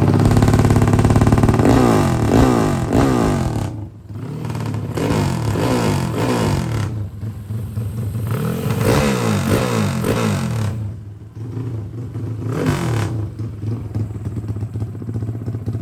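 Honda EX5's single-cylinder four-stroke engine, big-bored to 68 mm with an LC135 head and an open exhaust, running and being revved in several throttle blips that rise and fall back toward idle. The engine runs without knocking.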